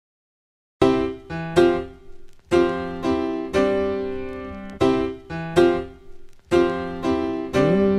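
Background music: piano chords struck one after another at an even pulse, each ringing and fading, starting about a second in.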